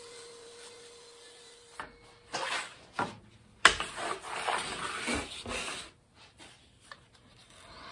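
Sawn ash strips being set down and shifted on a table saw top: a string of sharp wooden knocks and rattles. A faint steady hum stops about two seconds in.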